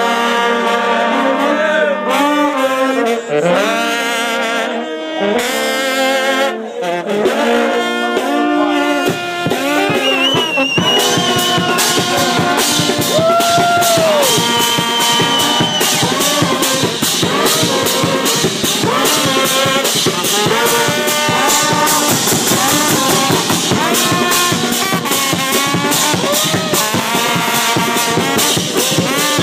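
Brass band playing live, with trombones and trumpets. The horns play alone at first, then the drums join about nine seconds in and the full band plays on together, with a high held note soaring over it near the middle.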